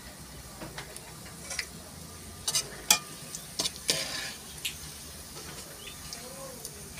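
Golden-fried onions sizzling in hot oil in a cooking pot, with a metal spoon scraping and clinking against the pot several times a few seconds in as some of the onions are lifted out.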